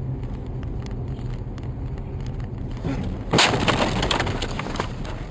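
Car running on a snowy road with a steady low rumble, then about three and a half seconds in a sudden loud bang as a mass of snow and ice thrown by an oncoming road grader slams into the windshield, followed by scattered cracks and ticks of ice chunks hitting the car.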